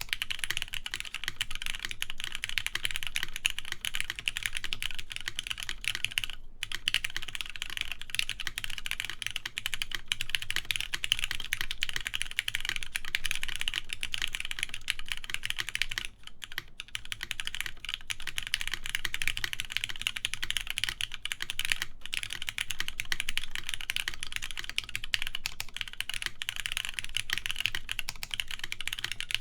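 Fast, continuous typing on a TGR Jane v2 ME mechanical keyboard with lubed, linear Cherry MX Black switches, a polycarbonate plate and Cherry keycaps: a dense run of key clacks with brief pauses about six and sixteen seconds in.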